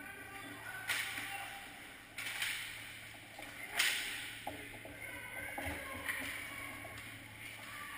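Ice hockey skate blades scraping across the rink ice in several sudden hissing strokes, the loudest about four seconds in.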